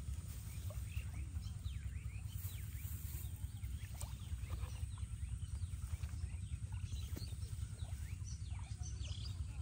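Outdoor ambience: a steady low rumble with many faint, short, high chirps of small birds scattered through it.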